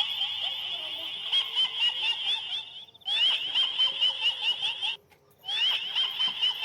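A high-pitched, shrill chattering horror sound effect, played in three stretches with short gaps near 3 and 5 seconds in.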